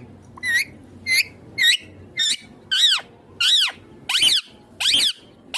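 Indian ringneck parakeet giving a quick series of about ten short, shrill calls, each one arching up and then down in pitch.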